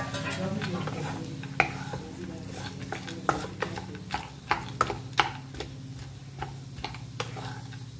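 Wooden spatula stirring diced potatoes and crushed roasted peanuts in a kadai, with irregular knocks and scrapes against the pan, about two a second. A low steady hum runs underneath.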